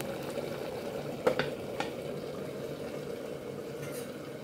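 Aluminium lid set down on a cooking pot: a sharp metal clink a little over a second in and a lighter one soon after, over a steady low background hum.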